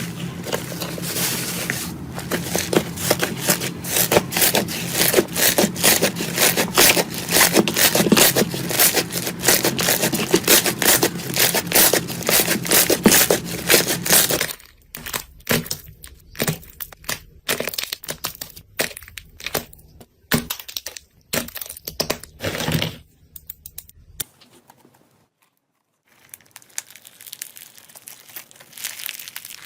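Slime being squeezed and pressed, giving a dense run of crackling and popping that thins to scattered crackles about halfway through, with a short near-silent pause before the crackling returns faintly.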